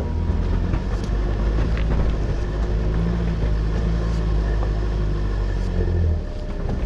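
Toyota Hilux 2.4-litre diesel engine rumbling at low revs as the pickup crawls over loose rocks, with a few sharp clicks of stones under the tyres. The rumble drops away somewhat near the end.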